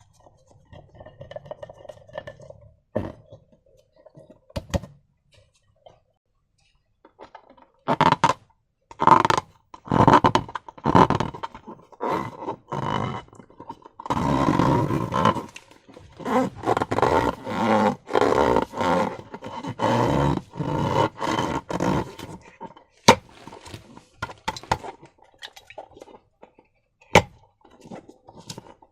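Slime and rubber balloons being handled: quiet at first, then about eight seconds in a long run of irregular squelching and rubbery scraping bursts, with a few sharp clicks.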